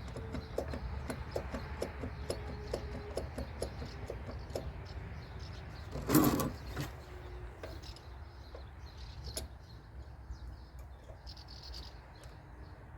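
Light clicks and handling noises of hand work on small parts, with one louder clatter about six seconds in.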